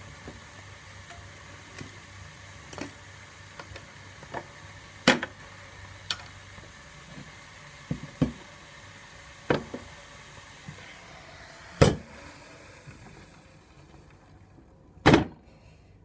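Clicks and knocks of a plastic tea maker being handled, its lid taken off and set back, over a steady low hiss. About fifteen seconds in comes one heavier, longer knock, as of a metal kettle being set down on the counter.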